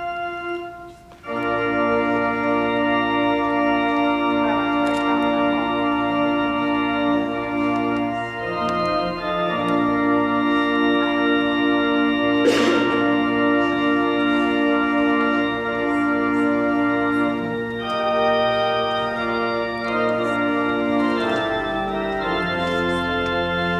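Organ playing slow, held chords as a bridal processional, changing chord every few seconds; a softer held chord gives way to the full chords about a second in. A short burst of noise cuts across the music about halfway through.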